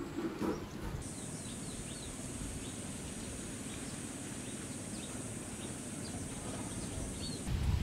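Rural outdoor ambience: a steady high-pitched insect buzz starts about a second in and stops abruptly near the end, over scattered small bird chirps and a low rumble of background noise. A louder burst of low noise comes right at the end.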